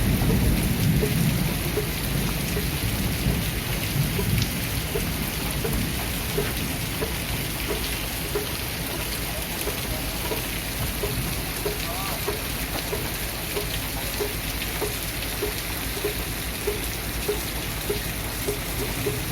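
Steady rain falling, with a low rumble of thunder dying away over the first few seconds. A faint, regular tick repeats about twice a second under the rain.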